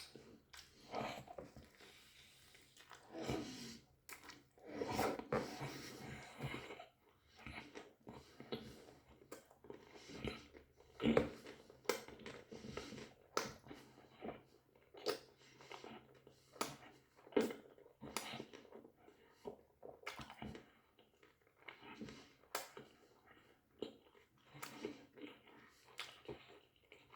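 A person eating doner kebab close to the microphone: bites and chewing with crunches, coming at an uneven pace.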